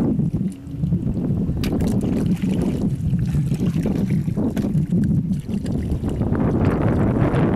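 Steady low rumble of wind buffeting the microphone outdoors, with a few faint wet clicks as hands dig through soft mud.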